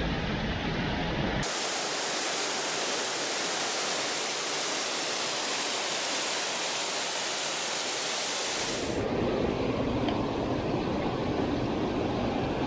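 Rushing water of a mountain stream: a low, muffled rushing that switches abruptly about a second and a half in to a bright, steady hiss, then back to the low rushing near 9 s. Two faint clicks sound near the end.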